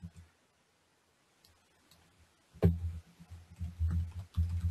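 Typing on a computer keyboard: after a near-silent stretch, a sharp click about two and a half seconds in starts a quick run of irregular low thumps and clicks that lasts to the end.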